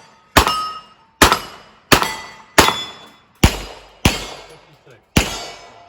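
Iron-sight revolver fired in a rapid string, seven shots roughly every half second to a second, with a gap of about a second after the sixth. Thin ringing tones hang after the shots, the ring of steel target plates being hit.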